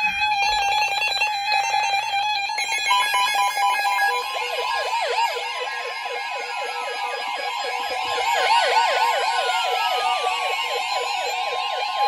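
Several NOAA weather radio receivers sounding their tornado-warning alarms at once. A steady alert tone of about 1 kHz comes in about three seconds in, and from about four seconds rapid repeating chirps and slow falling sweeps pile on top of it.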